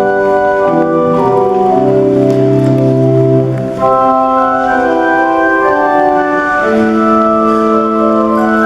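Church organ playing slow, sustained chords that change every second or so, with a brief dip just before four seconds in.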